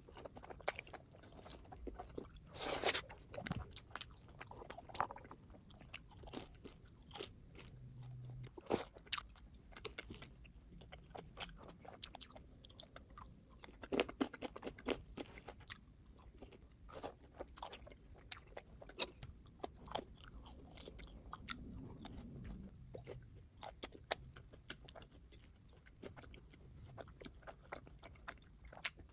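Close-up eating sounds: a person chewing and biting crunchy food, with irregular crisp crunches throughout, the audio sped up to double speed.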